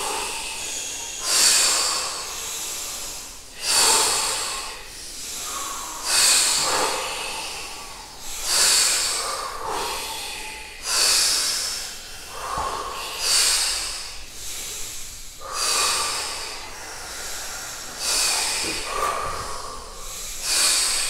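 Deep breathing in and out in a steady rhythm, about one full breath every two and a half seconds. This is the over-breathing phase of a Wim Hof-style breathwork round, which comes before a breath hold.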